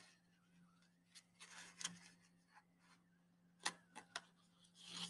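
Near silence with faint rustles of paper and a few light clicks as paper craft pieces are handled at a table, over a steady low hum.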